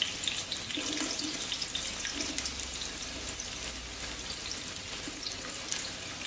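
Onions sizzling steadily in hot oil, with scattered small crackles.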